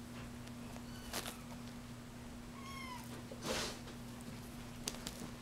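Bengal kittens mewing: a short, faint, falling mew about a second in and a clearer high mew just under three seconds in, with a brief rustle of play after it and a few light clicks near the end.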